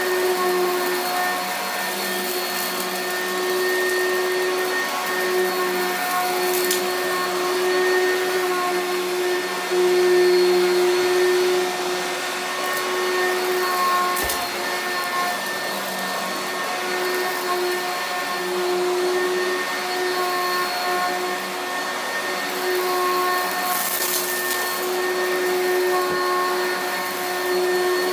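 Bagged upright vacuum cleaner running and being pushed over carpet: a steady motor hum whose strength wavers slightly as it moves, with a few brief clicks.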